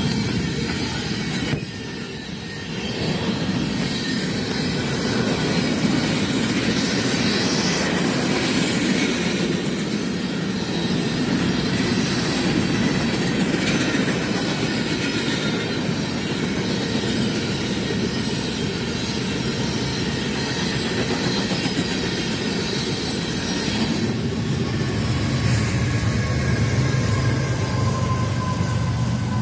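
Union Pacific freight train of open-top cars rolling past: a steady rumble and clatter of wheels on rail, with a faint high wheel squeal at times. From about 25 seconds in, a deep steady drone from diesel locomotives passing in the consist joins the rumble.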